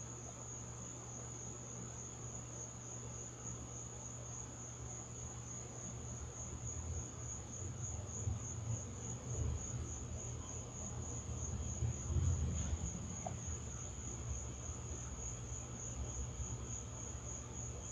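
Crickets trilling steadily in one high, unbroken pulsing tone, with a low rumble underneath that swells in the middle.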